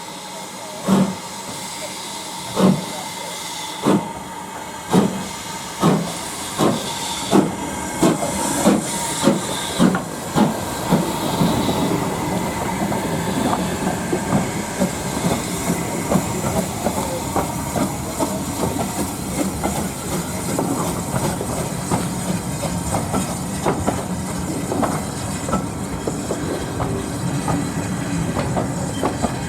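Steam locomotive starting away under a hiss of steam, its exhaust beats slow at first and quickening steadily to several a second, then blending into a continuous rumble as the train runs past.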